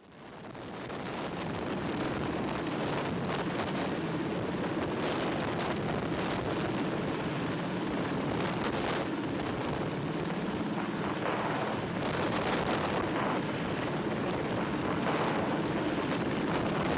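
Steady engine-like rumble, fading in from silence over the first couple of seconds and then holding level.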